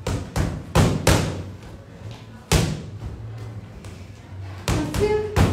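Boxing gloves striking a freestanding punching bag: a quick run of four punches in the first second, a single punch about two and a half seconds in, then another flurry of punches near the end.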